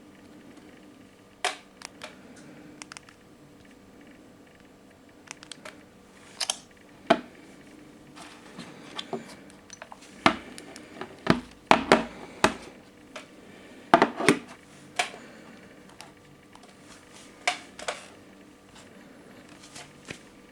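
Handling noise: irregular clicks and knocks, coming singly and in short clusters, thickest around the middle, over a faint steady hum.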